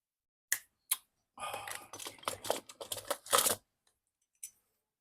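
A small tool clicking and scraping against brittle, glued thermoplastic as a display holder is pried at: two sharp clicks, then about two seconds of rapid, scratchy clicking, and one last faint click near the end.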